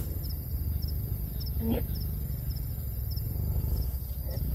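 Crickets chirping, short high chirps about twice a second, over a steady low rumble, with one brief voice-like blip a little before the middle.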